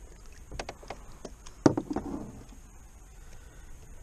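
Scattered sharp clicks and knocks as a just-caught largemouth bass is grabbed from the water and handled to unhook it, with one loud knock a little over one and a half seconds in.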